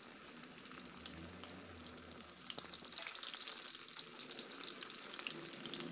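Breadcrumb-coated prawns deep-frying in hot oil in a wok: a steady, dense sizzle and crackle of bubbling oil that gets louder about three seconds in.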